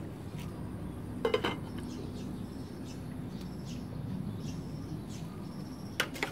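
Clinks of tableware, the loudest near the end as a glass pot lid is lifted off a stainless steel hot pot and clinks against its rim. Faint bird chirps sound throughout.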